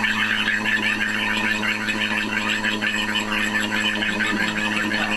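Vacuum pump running steadily, pulling a vacuum on a desiccator chamber to degas liquid silicone. It makes a steady hum under a busy, rapid crackling noise.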